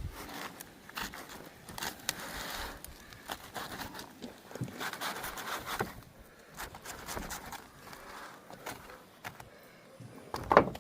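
A ripe jackfruit being worked apart by hand: irregular scraping and crackling of the flesh and fibrous rag, with scattered small knocks.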